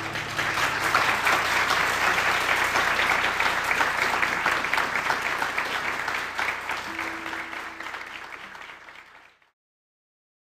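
Audience applauding, thinning out toward the end and cut off suddenly about nine seconds in.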